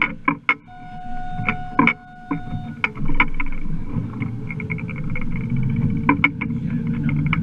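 Center-console fishing boat on open water: a steady low rumble with frequent short, sharp knocks, and a held steady tone lasting about two seconds starting about a second in.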